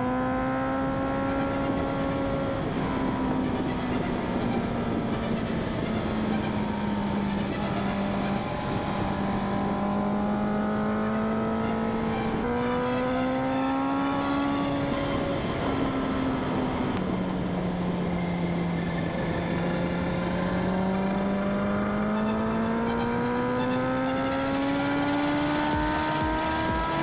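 Honda CB650R's inline-four engine through a full Akrapovic exhaust, heard while riding at speed with wind rush. The engine note falls and rises with the throttle, shifting abruptly a few times, then climbs steadily through the last third as the bike accelerates.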